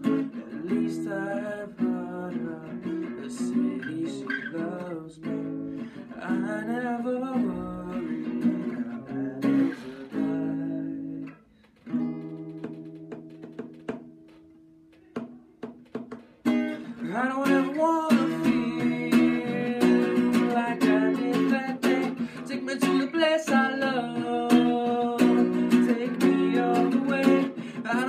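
A Tanglewood cutaway acoustic guitar, picked and strummed, with a man singing over it. About halfway through the playing thins to a few soft notes, then fuller, louder strumming comes back for the rest.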